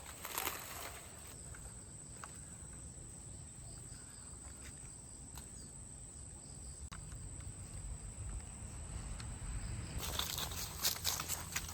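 Outdoor ambience with a steady high insect drone and a few scattered small clicks. Louder rustling and crackling begin near the end.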